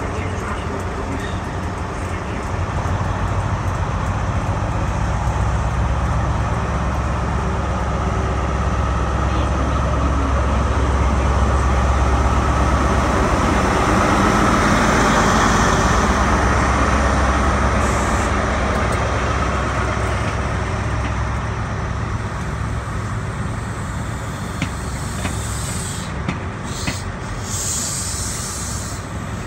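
Diesel engine of an LNER InterCity 125 (HST) power car running, a steady low drone that swells towards the middle and then eases off, with bursts of air hiss. Near the end an LNER Azuma train moves past close by.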